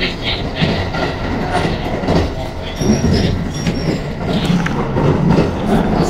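Running noise of a 681 series limited express electric train heard from inside the passenger car: a steady low rumble with scattered clicks from the wheels and track.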